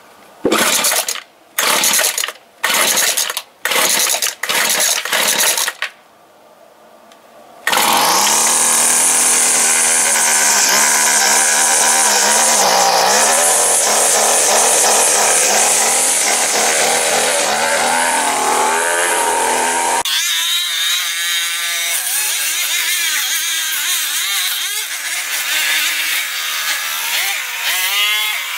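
Two-stroke gas string trimmer (weed eater) being pull-started on full choke after priming: a series of quick starter-cord pulls, then the engine catches about eight seconds in and runs at high speed. About two-thirds of the way through the sound changes and the engine speed wavers up and down to the end.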